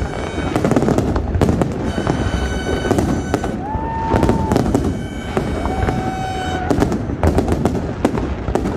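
Fireworks bursting and crackling in rapid, continuous succession. In the middle a steady whistle-like tone is held for a few seconds, with two shorter, lower whistles over it.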